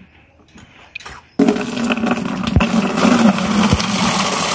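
Water from a wall tap running into a plastic water cooler jug, starting suddenly about a second and a half in as the tap is opened, then a steady splashing stream.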